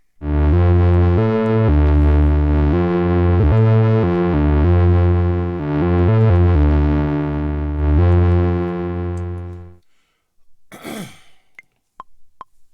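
Software synthesizer keys in Maschine playing a slow run of sustained chords over a heavy low bass, the chord changing every second or so. It stops after about ten seconds.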